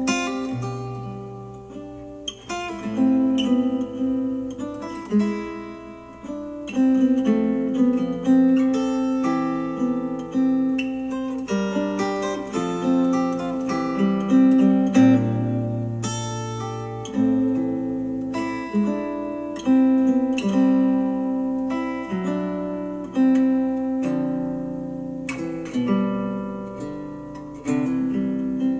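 Instrumental acoustic guitar music, plucked and strummed notes with no singing, played back through a JBL Xtreme 3 portable Bluetooth speaker.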